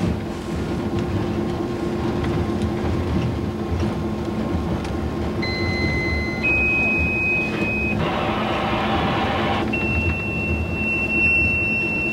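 Diesel locomotive running steadily as it rolls slowly along the track, with a low, even hum. From about five seconds in come several high, steady whistling tones that step up in pitch. About eight seconds in they are broken by a rougher, noisier burst lasting over a second, and then one long high tone follows.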